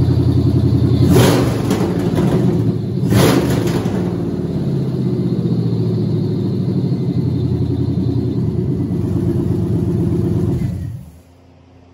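Freshly rebuilt 6.0-litre LQ9 LS V8 (5.3 heads, LS6 cam) running loud with no exhaust fitted, on its first proper test fire with no coolant in it. It is revved twice in quick succession, settles to a steady idle, then is shut off about a second before the end.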